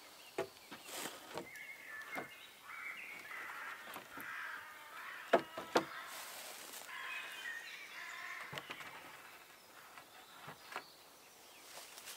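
Wooden poles knocking and clattering as they are handled and set against a lean-to shelter frame, scattered sharp knocks with two loud ones close together about five and a half seconds in. Birds call in the woodland behind.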